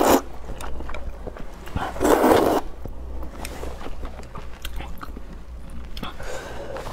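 A person slurping rice noodles in broth, with two loud slurps, one at the start and one about two seconds in, followed by quieter chewing with small wet clicks.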